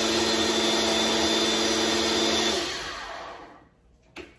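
Ninja personal blender running steadily with a whirring motor hum, blending a liquid coquito mix, then winding down and stopping about three seconds in. A short click near the end.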